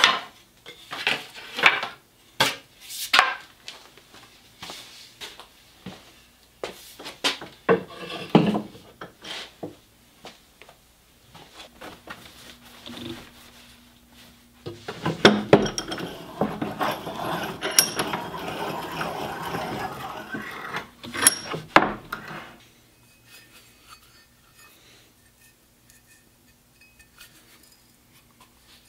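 Wooden axe handles knocking and clattering as they are handled and laid down, a dozen or so sharp knocks over the first ten seconds. Then about seven seconds of steady scraping with a couple of sharp clinks, after which it goes quiet.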